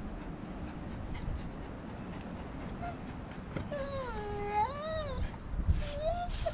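Siberian husky whining in one long, wavering moan about three and a half seconds in, its pitch dipping and then rising, followed by a short rising whine near the end. The owners read it as impatience at the long grooming.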